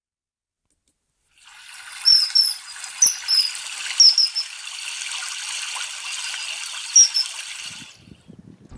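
Running water hissing steadily, with short, sharp high-pitched bird whistles coming in quick pairs early on and once more near the end. The sound fades in after a second and a half of silence and stops shortly before the end.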